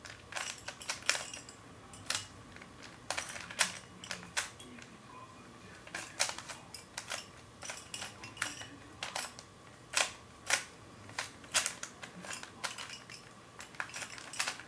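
Rubik's Cube layers being turned by hand: quick plastic clicks and clacks in uneven runs, a few a second with short pauses, while the middle layer is being solved.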